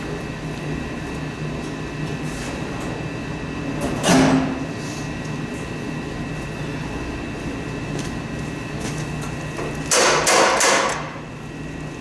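A hammer striking snowblower parts during a teardown: one blow about four seconds in, then a quick run of several blows near the end.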